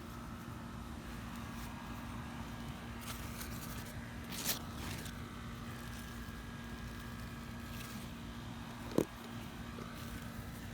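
Steady low mechanical hum over background noise, with a brief hiss about four and a half seconds in and a single sharp tap about nine seconds in.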